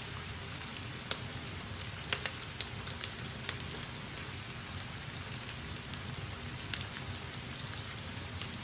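Pen writing on paper: irregular small taps and scratches as the words are written, over a steady low room hum.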